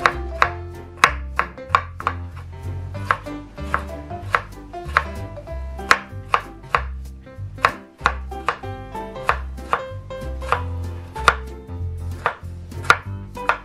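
Kitchen knife chopping cucumber on a wooden cutting board: sharp, irregular knocks of the blade on the board, about two a second. Background music with a pulsing bass plays under it.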